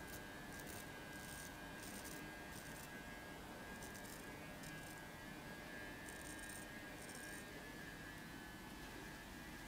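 Straight razor scraping stubble through shaving gel in short, quick scratchy strokes, several in a row at first, then a few more after a pause, over a faint steady hum.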